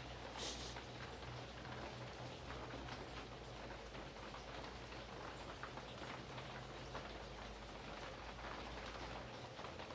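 Steady rain falling, an even hiss pattered with small drop impacts. A short, sharp hiss comes about half a second in, and a low hum underneath stops about nine seconds in.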